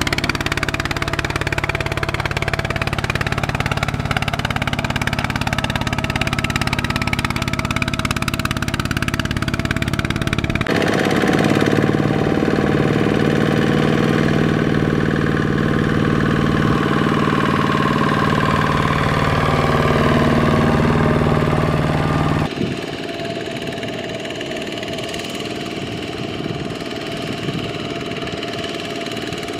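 Two-wheel power tillers' single-cylinder diesel engines running under load, hauling rice trailers through deep paddy mud. The engine note changes abruptly twice as it switches from one machine to another, with the pitch drifting slightly up and down in between.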